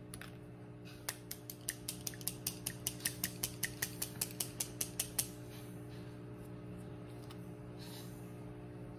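A tube of LipSense liquid lip colour being shaken: a quick run of about twenty light, even clicks, roughly five a second, that stops after about four seconds.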